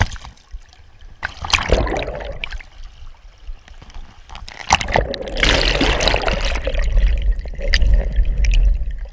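Creek water splashing and sloshing against a camera held at the surface, with a sharp splash at the start. In the second half the camera goes underwater and the sound turns to a loud, muffled rush of water.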